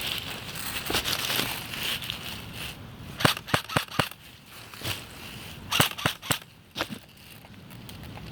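Airsoft guns firing: a quick string of four sharp pops about three seconds in, then another string of four or five a couple of seconds later, over rustling in the brush.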